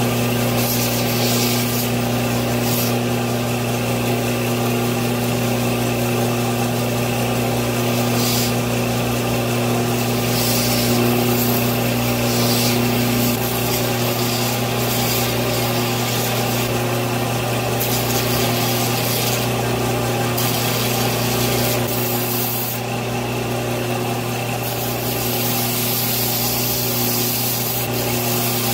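Electric power tool grinding and polishing a pocket knife's steel: a steady motor hum under a rasping, rubbing noise from the metal on the abrasive, which swells and eases as the piece is pressed on and moved.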